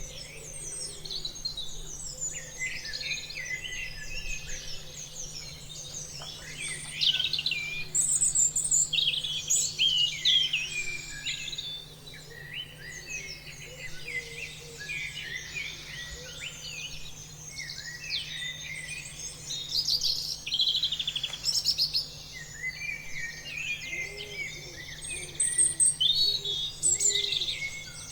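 Many songbirds chirping and singing together, a dense chorus of short calls and trills. A faint steady hum lies underneath.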